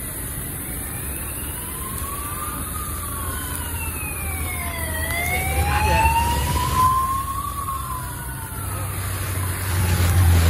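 Police escort sirens wailing in slow rising and falling sweeps, more than one sounding at once. They are loudest as a police motorcycle passes about six seconds in. A low engine rumble from the approaching motorcade builds near the end.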